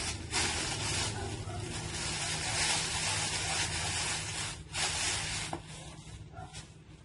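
Rustling and handling of packaging as a new angle grinder kit is unpacked: a crinkly hiss for about four and a half seconds, a shorter rustle about five seconds in, then it dies away.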